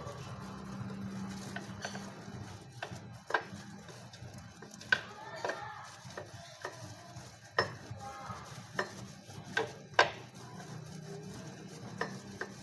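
Metal hand tools clinking and scraping against metal: about a dozen irregular sharp clinks, the loudest about ten seconds in, over a steady low hum.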